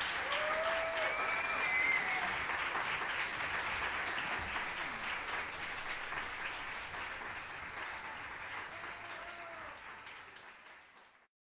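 Audience applauding in a hall, with a few voices calling out over the clapping; the applause gradually dies down and cuts off near the end.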